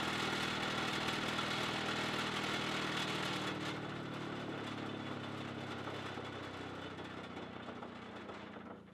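Antique Frank H. Clement surface sanding drum sander, its 30-inch drum belt-driven by a 5 hp electric motor, running with a steady hum while a board is pushed over the drum; the sanding scratch stops about four seconds in and the machine runs on free. The drum spins too fast and vibrates heavily; the owner says it needs balancing.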